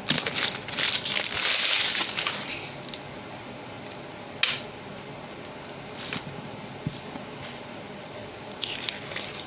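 Toy packaging crinkling as it is unwrapped for the first couple of seconds, then scattered sharp clicks and taps as small wrapped pieces are handled, with one louder click about four and a half seconds in.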